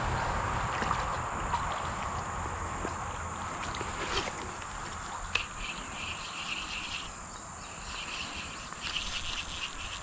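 Insects chirping in rapid pulses over the steady rush of stream water; the chirping sets in about halfway through and pauses briefly before resuming.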